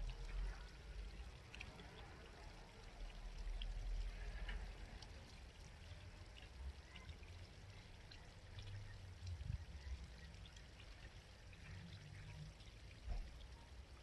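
A small shallow stream babbling and trickling steadily, with low rumbles swelling and fading beneath it.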